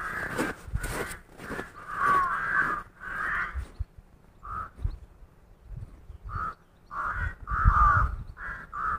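Crows cawing, a string of about eight to ten short, harsh calls, the loudest near the end. Footsteps crunch in snow during the first second or so.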